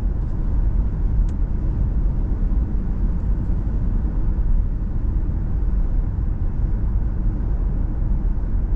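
Steady low rumble of tyre rolling and wind noise heard inside the cabin of a Genesis GV70 cruising at about 100 km/h. The cabin is freshly sound-deadened, so the rolling noise is low and muffled.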